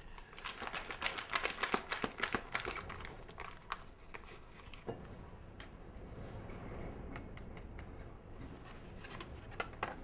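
A small vitamin C drink-mix packet crinkling and being torn open by hand: a rapid run of crackles and small clicks for about the first four seconds, then quieter, with a few scattered clicks.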